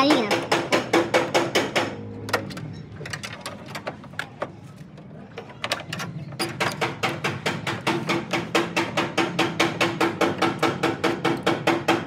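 Background music with a fast, even percussive beat of about five strikes a second over a steady low tone. From about two seconds in it drops to a quieter stretch with a few faint clicks, and the beat comes back a little past six seconds.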